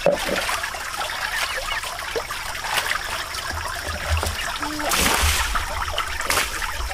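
Water trickling and splashing, in irregular spatters, with louder splashing about five seconds in.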